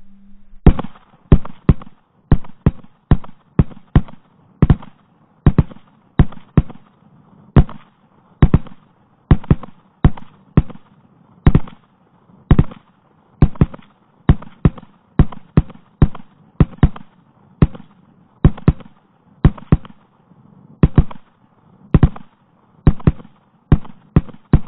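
Rapid 9mm pistol fire from an HK VP9 and a Glock 17, played back in slow motion. The shots come about one and a half a second at uneven spacing, each deep and with a short ring.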